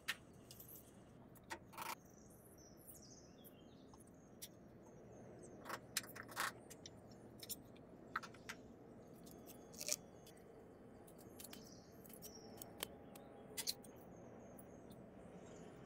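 Quiet handling sounds of croissant dough being worked with a wooden rolling pin on a countertop: scattered light taps and clicks over a low hiss, a few sharper ones near the middle.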